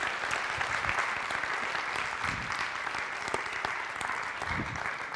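Audience applauding steadily at the end of a talk, many hands clapping at once.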